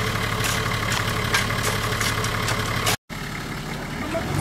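Off-road SUV's engine idling steadily, with irregular sharp strikes a few times a second from digging tools chopping into stony soil. The sound cuts out briefly about three seconds in, then the idling goes on more quietly.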